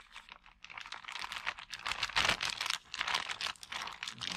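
A plastic flour bag crinkling as it is tipped and shaken to pour flour into a cup: a dense, rapid crackle.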